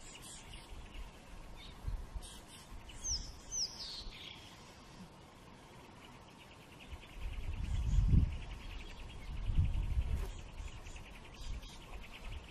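Birds calling: two quick falling chirps a few seconds in, then a rapid, even pulsing trill from about seven seconds on. Low rumbles come and go under it around the middle.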